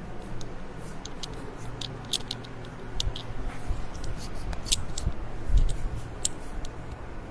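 Hands working on a patient's body during a chiropractic treatment: irregular sharp clicks and rustles, with a couple of soft thumps, over a low steady hum.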